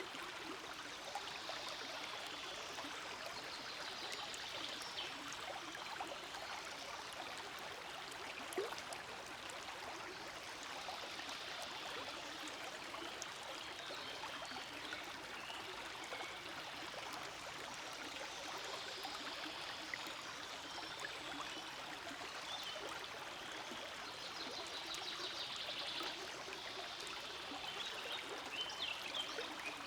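Forest stream flowing steadily over rocks, a continuous rush and trickle of water, with one short click about a third of the way in.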